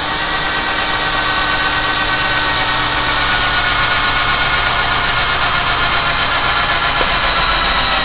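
Electric power drill running continuously, a steady motor whine that drifts slightly lower in pitch.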